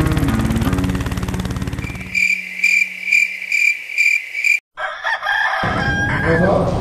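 Music with a fast pulsing beat stops about two seconds in, giving way to a cricket chirping steadily, about twice a second. After a brief silence a rooster crows near the end, a night-to-morning change.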